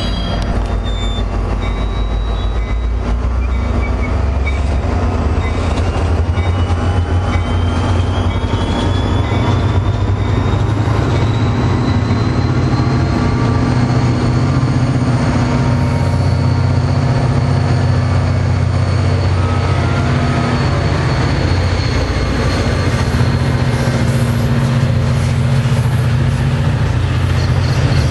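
NJ Transit diesel push-pull commuter train passing close by: a steady, loud run of wheels on rail and the diesel locomotive's engine, with a faint high tone slowly rising partway through.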